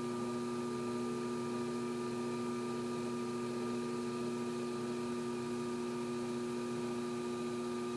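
Electric potter's wheel running at a steady speed: a constant motor hum made of several fixed pitches.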